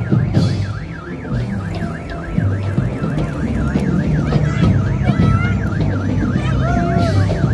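A rapidly warbling electronic siren tone, swooping up and down about three times a second without a break, over a heavy low rumble.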